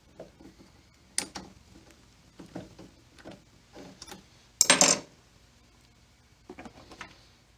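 Scattered light clicks and knocks of small metal tools and parts being handled, with a louder metallic clatter about four and a half seconds in.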